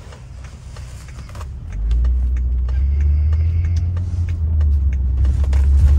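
A car's engine and road rumble heard inside the cabin, low and steady, swelling about two seconds in as the car pulls away and gets up to speed.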